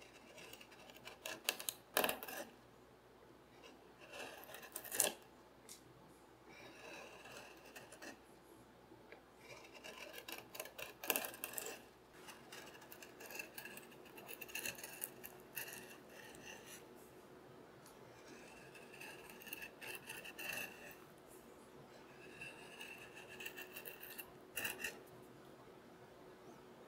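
Hand chisel paring walnut, a series of short slicing strokes that each lift a curled shaving, with a few sharper clicks of the blade on the wood.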